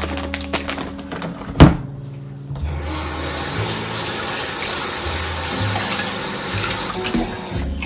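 Plastic bags rustling in a refrigerator vegetable drawer, a single sharp knock about a second and a half in, then tap water running steadily into a pot in a kitchen sink for about five seconds, cutting off near the end.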